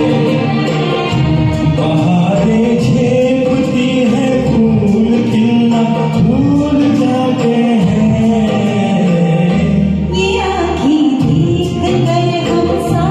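Karaoke performance of a Hindi film song: a vocalist sings sustained, bending melodic lines over a recorded backing track.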